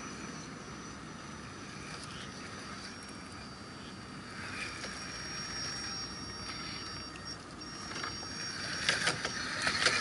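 Scale RC crawler truck's electric motor and gears whining steadily as it crawls over a wooden plank bridge, getting louder as it comes close. Near the end a quick run of knocks and clicks as its tyres roll over the wooden slats right by the microphone.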